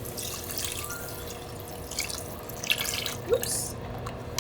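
Seafood stock being poured into a cooking pot: an irregular splashing trickle of liquid that stops near the end.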